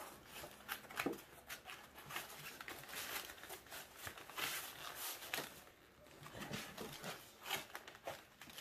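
Padded snowmobile handlebar cover being worked back and forth over the bars by hand: irregular scuffing and rustling with many small clicks.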